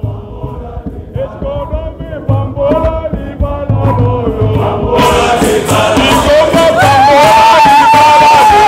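Male choir singing in harmony over low drum beats. About five seconds in it grows louder as more voices and shouts join, with one long high held note near the end.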